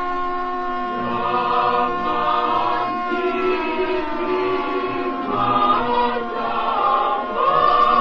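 Emergency alert alarm audio: a dense chord of held tones, choir-like, with siren tones slowly gliding up and down through it.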